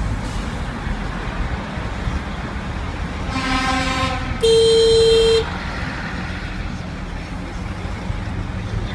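Steady traffic rumble of lorries and cars, heard from inside a car, broken by two horn blasts in quick succession about three seconds in: first a longer, lower horn rich in overtones, then a louder, sharper horn sounding one steady note for about a second that starts and stops abruptly.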